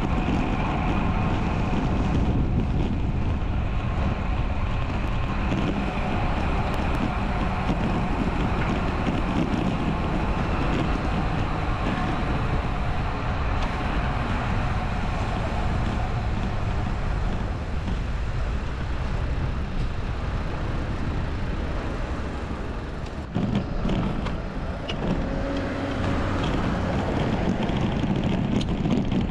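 Steady wind rumble and road noise on a road bike's action camera while riding, with road traffic, the loudness dipping briefly about 23 seconds in.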